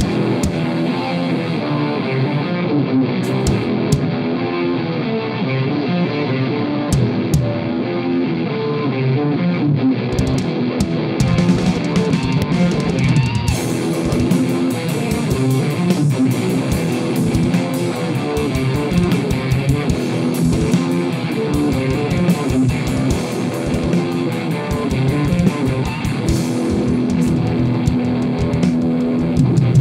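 Live rock band playing electric guitar over a drum kit, with quick, busy drumming. The sound gets brighter from about halfway through.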